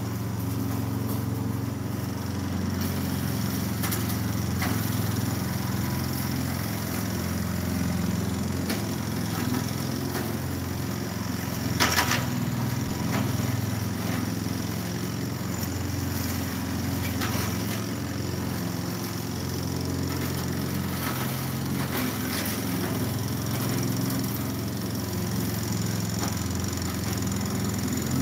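Lawn mower engine running steadily, with a sharp knock about twelve seconds in.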